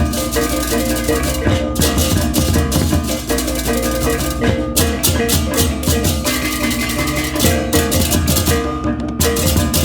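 Balinese baleganjur gamelan playing: a dense, fast clash of many ceng-ceng cymbals over kendang drums, with the tuned gong-chimes and big gongs ringing beneath. The cymbals break off for a moment about two, five and nine seconds in while the gongs carry on.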